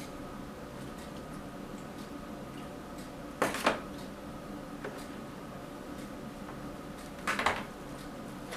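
A hand reaching into a bucket of soapy water to pull out a rubber band-saw tire, with two brief water sloshes about three and a half and seven seconds in, over a steady background hum.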